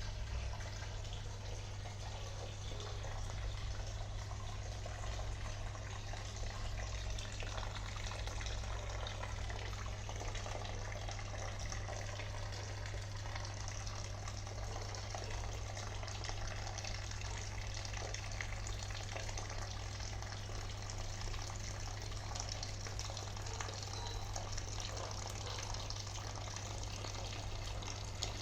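Water fountain splashing and falling steadily, with a low steady hum underneath.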